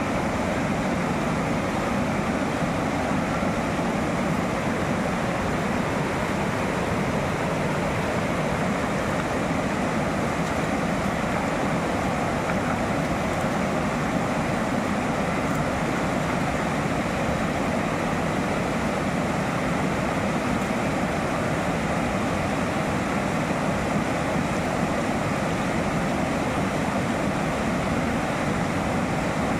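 Steady rush of a shallow, fast river running over rocks and rapids, an even roar with no breaks.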